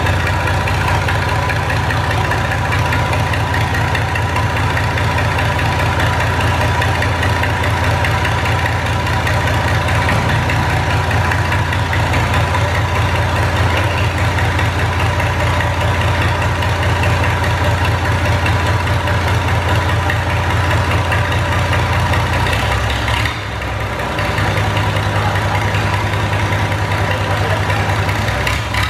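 Big engine idling loudly with a thick, deep rumble, echoing inside a workshop shed. About three-quarters of the way through, the sound dips briefly and the low note shifts.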